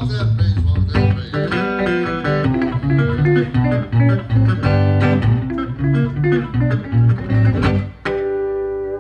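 D'Angelico archtop electric guitar played fingerstyle in Travis picking: a steady thumbed bass under a quick plucked melody. Near the end the tune stops on a final chord left ringing.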